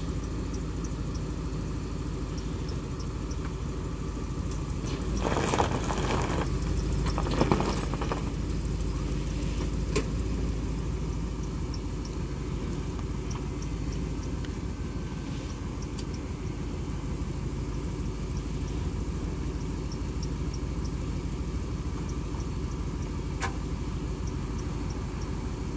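A vehicle engine idling steadily, with a louder swell about five to eight seconds in.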